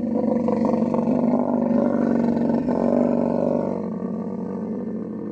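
Male camel's mating roar: a long, continuous, rough call at a steady low pitch, easing off a little near the end.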